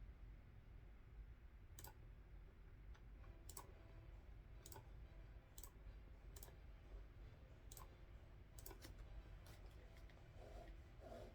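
Quiet, sharp clicks at a computer, coming singly and irregularly about once a second, as in clicking a mouse.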